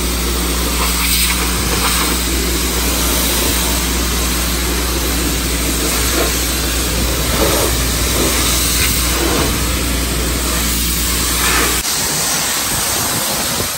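Self-service car-wash pressure washer: the high-pressure pump running with a steady hum while the water jet hisses against the car's bodywork. Near the end the hum cuts off suddenly, leaving the hiss of the spray.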